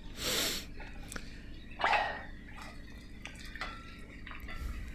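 Butter frying in a cast-iron skillet with scattered small pops and crackles, and two short rasping bursts: one right at the start, one about two seconds in.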